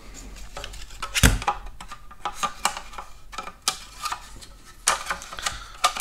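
Scattered plastic clicks and taps from the circuit board and plastic housing of a Porsche 987 climate control unit being handled and fitted back together. There is a heavier knock about a second in and a quick run of sharp clicks near the end.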